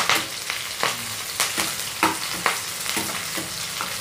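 Chopped onion and dried red chillies sizzling in hot oil in a metal kadai, a tempering. A perforated metal spatula stirs them, scraping and knocking against the pan about every half second.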